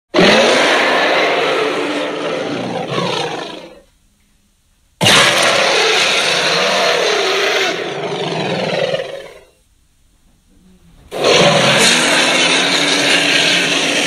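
Designed Tyrannosaurus rex roar sound effect, layered from big-cat roars and monster growls: three long roars of about four seconds each, each starting suddenly and trailing off, with short near-silent gaps between.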